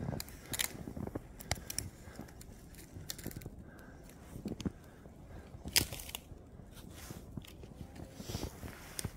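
Irregular crunching and scraping of footsteps in fresh snow, with one sharper crunch past the middle.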